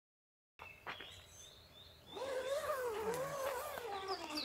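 An animal's drawn-out call, wavering up and down in pitch for about two seconds and sliding down at the end, after a few faint clicks.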